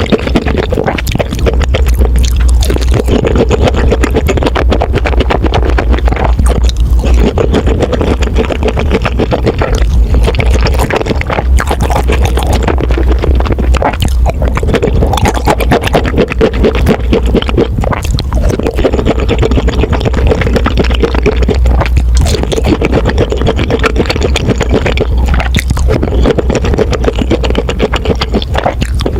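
Crunching and chewing of crispy fried pork cutlet close to the microphone, with many short crisp crunches, over background music with a deep, pulsing bass.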